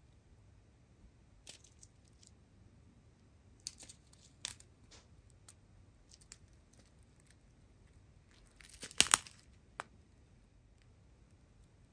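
Clear plastic zip-top bags of resin diamond-painting drills crinkling as they are handled, in scattered short rustles, with the loudest crinkle about nine seconds in.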